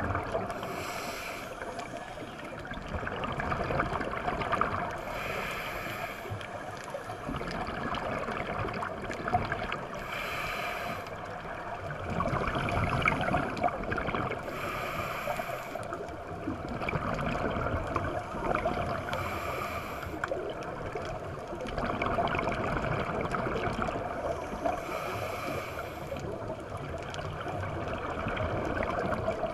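Scuba diver's regulator breathing heard underwater: a short hiss of each breath drawn through the regulator about every four to five seconds, with a rush of exhaled bubbles between.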